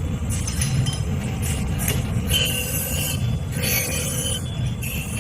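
Brake-shoe grinding machine running, its abrasive rubbing on a drum-brake shoe lining: a steady low rumble with a high scraping squeal that comes and goes.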